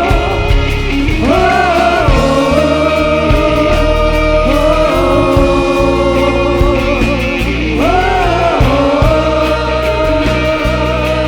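Live worship music: a singer holds long notes, swooping up in pitch twice, over a steady sustained band accompaniment.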